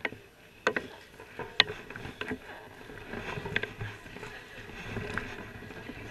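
Mountain bikes being wheeled and ridden over a wet tunnel floor: scattered sharp clicks and knocks from the bikes over a steady low rumble.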